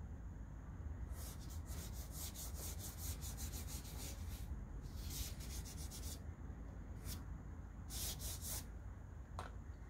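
Soft pastel stick scratching across paper in quick back-and-forth shading strokes: a fast run of strokes about a second in lasting around three seconds, then shorter bursts of strokes.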